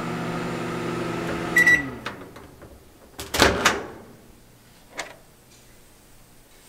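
Microwave oven running with a steady hum, then a single short beep about one and a half seconds in as it is stopped; the hum winds down, falling in pitch. Over a second later comes a quick cluster of loud clicks as the door is unlatched and opened, and another small click a second or so after.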